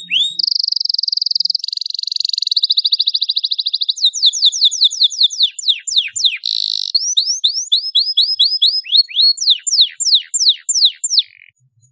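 Domestic canary singing in full song: runs of fast, buzzy trills, then phrases of quickly repeated sweeping whistles, some rising and some falling. The song stops shortly before the end.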